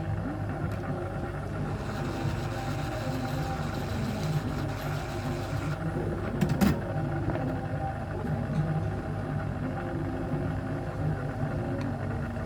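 Steady low mechanical hum with a rumble, with one sharp click about six and a half seconds in.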